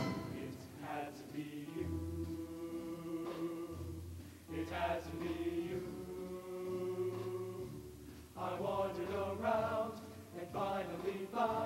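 A show choir singing a slow passage in harmony over held low notes, the voices swelling in long phrases with louder entries about halfway through and again about two-thirds through.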